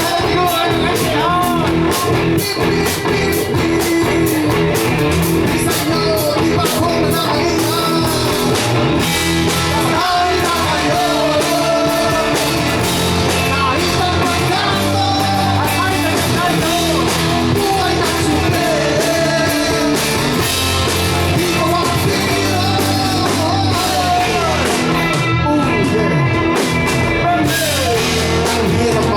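Rock song with a singer and guitar over a steady driving beat, loud and continuous.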